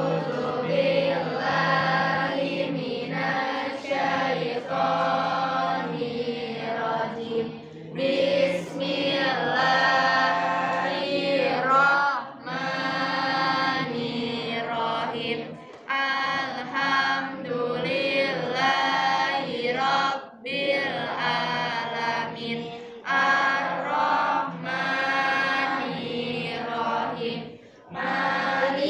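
A class of students chanting a prayer together in unison, in phrases of a few seconds separated by short breaths.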